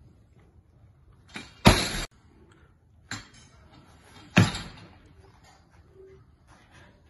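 Loaded barbell with bumper plates hitting a gym floor: a heavy thud with a short ringing tail about one and a half seconds in as the bar is dropped from overhead. A lighter knock follows at about three seconds, then a second loud thud a little after four seconds as a clean is caught, the lifter's feet stamping down.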